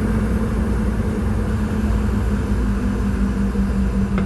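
Steady cabin noise of a Boeing 717 airliner in flight or on the ground: a low rumble and hiss from its engines and airflow, with a steady low hum underneath.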